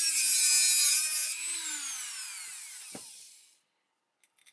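Dremel rotary tool with a sanding attachment running against a glass LED bulb. It is switched off about a second and a half in, and its whine falls away as it spins down over the next two seconds. A few short clinks come near the end.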